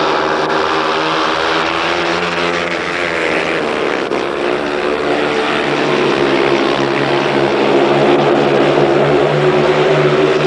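Several speedway motorcycles racing, their single-cylinder 500 cc methanol engines running hard together in a dense, loud drone whose pitch rises and falls as the riders go through the bends.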